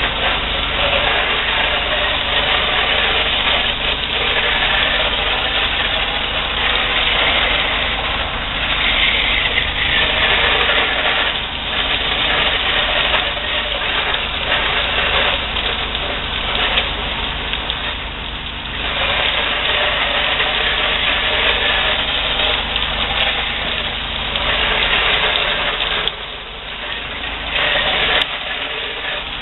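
Pressure washer's engine running steadily under the loud hiss of a high-pressure water spray from a wand rinsing house siding and gutters. The spray briefly drops in level a few times.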